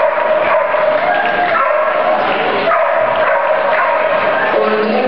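Dogs barking and yipping over a constant din of crowd chatter in a large indoor hall.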